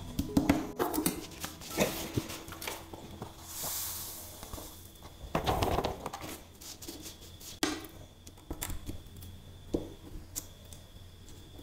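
Small taps and scrapes of a plastic spoon spreading coloured sand on sticker paper. About halfway through there is a short rush of loose sand sliding off as the sheet is lifted and tipped, followed by scattered light clicks and rustles.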